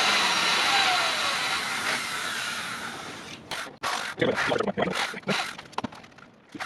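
Electric drill boring a hole in melamine particleboard, running for about three seconds and fading out, followed by a series of knocks and clatters.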